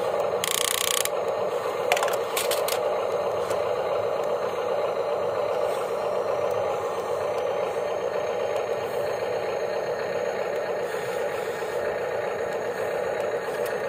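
Radio-controlled toy excavator's small electric motors and plastic gears whirring steadily as the arm and bucket move, with a brief rustle about half a second in and a few sharp clicks around two seconds in.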